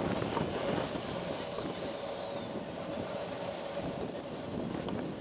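Wind buffeting the action camera's microphone on a moving bicycle, over road and traffic noise on a city street, with a steady hum and a faint high falling whistle about a second in.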